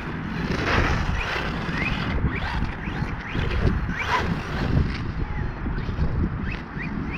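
Electric motor of a Blackzon Smyter MT radio-controlled truck on a 3S battery, whining in several short rising revs as it is driven, over a heavy wind rumble on the microphone.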